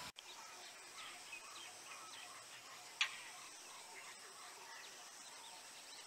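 Quiet field recording with faint scattered bird chirps. About halfway through comes a single short, harsh, loud 'chack' call, typical of the Indian roller (Coracias benghalensis).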